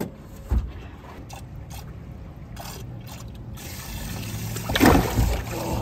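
Water trickling and sloshing in a boat's live well as a big catfish is grabbed by hand, with a louder splash near the end over a low steady hum. A dull thump about half a second in.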